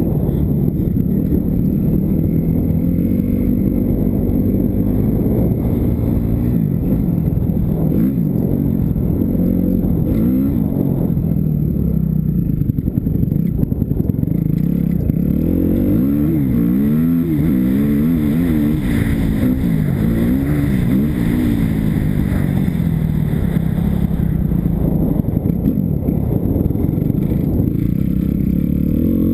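Kawasaki KX250F's single-cylinder four-stroke engine running hard, revving up and down repeatedly as the throttle is opened and closed through the corners and straights, with quick rises and falls in pitch about halfway through. Heard close-up from the rider's own bike.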